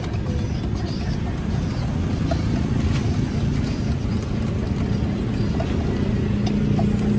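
Steady low rumble of roadside traffic.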